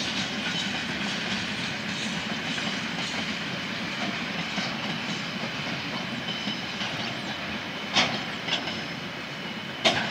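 Freight train wagons rolling past: a steady rumble and rattle of wheels on rails, with a few sharp clacks in the last two seconds.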